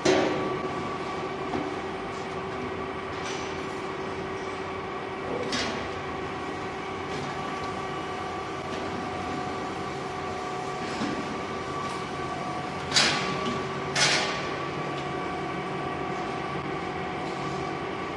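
Stainless steel bottle turntable running, with a steady motor and gear hum. Plastic bottles knock on the steel table and guide rails now and then, the loudest two knocks a second apart late on.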